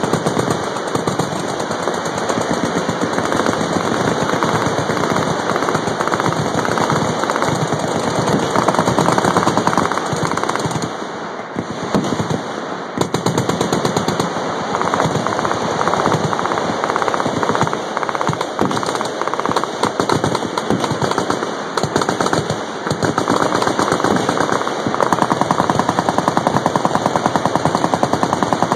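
Many machine guns firing at once along a firing line: dense, continuous automatic fire with overlapping bursts, easing briefly about eleven seconds in.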